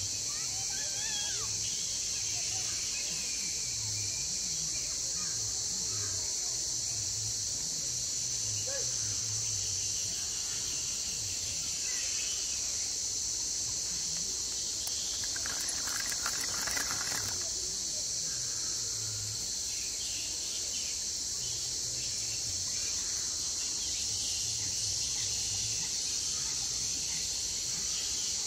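Steady high-pitched drone of an insect chorus, with a few faint bird chirps over it. About sixteen seconds in there is a short burst of rapid clicking.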